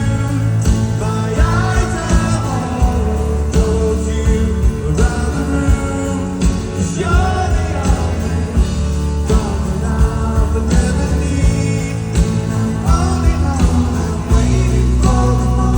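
Rock band playing live with a singing voice over the full band, drums keeping a steady beat.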